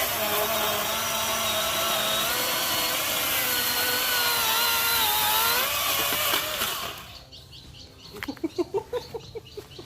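Cordless battery-powered Milwaukee chainsaw cutting through wood: its electric motor and chain start up suddenly with a high whine, the pitch sagging as the chain bites under load, then wind down and stop about seven seconds in.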